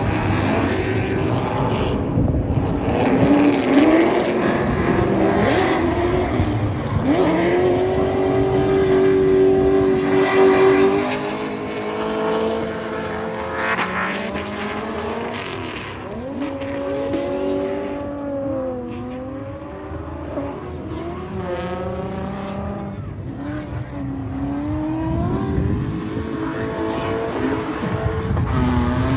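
Car engine revving hard on a drift run: held at high revs for a few seconds, then the revs drop and climb again several times as the driver lifts and gets back on the throttle, a little quieter in the second half.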